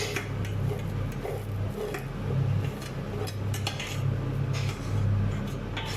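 Metal spoon clinking and scraping against a pot as frying rice is stirred, in scattered short knocks. A steady low hum runs underneath.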